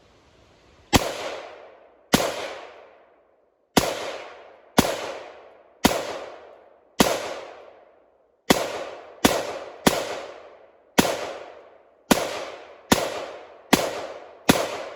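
AR-15 rifle firing about fourteen shots in semi-automatic fire, at first about a second apart and then quicker, each shot sharp and trailing off in a long echo.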